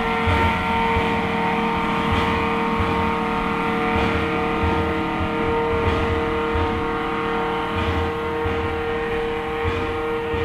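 Narrow-gauge steam train running, with a steady ringing tone over low exhaust beats at roughly one a second.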